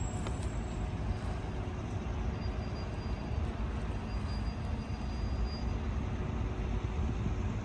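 Steady low outdoor rumble of road traffic, with no distinct events.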